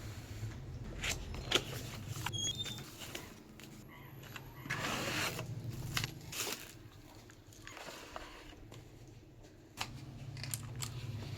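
Scattered clicks, taps and rustling of a keyboard box and its packaging being handled, with a longer stretch of rustling about five seconds in. A low hum runs underneath at the start and again near the end.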